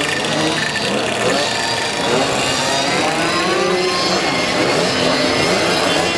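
Engines of several small motorcycles and mopeds running and revving together as they ride past in a group, their pitches rising and falling over one another.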